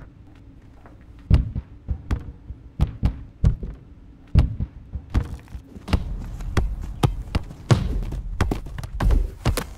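A run of dull, heavy thumps, a few seconds apart at first and then coming faster and faster, with a low rumble building underneath from about six seconds in.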